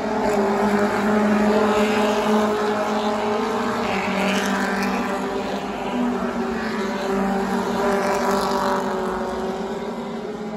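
Stadium Stocks race cars' engines running past in a line at caution speed, a steady drone that swells as each group of cars goes by.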